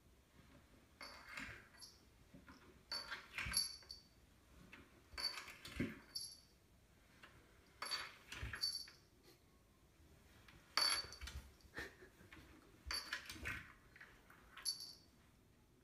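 A cat sliding limply down wooden stairs a step at a time: about a dozen short bumps and scuffs on the treads, each with a brief metallic jingle, and a few duller thuds as it drops onto a step.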